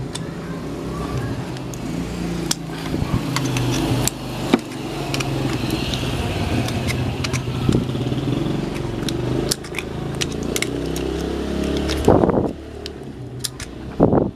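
An electric motor-driven tool runs steadily with scattered metallic clicks and taps, then is switched off about twelve seconds in. It is briefly triggered again just before the end.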